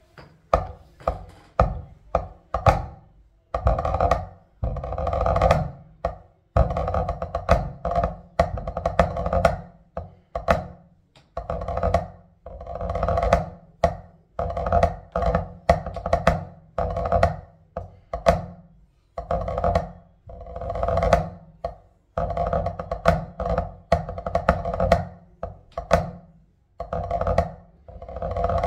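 Pipe-band snare drum score for a 2/4 march played with wooden drumsticks on a practice pad: crisp rudimental stick strokes with repeated rolls lasting a second or two, in a steady march rhythm.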